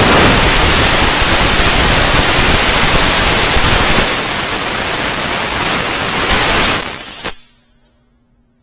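Compressed-air blow gun blasting a steady, loud hiss as it blows debris out of a small metal part from a high-pressure washer pump. It cuts off abruptly about seven seconds in.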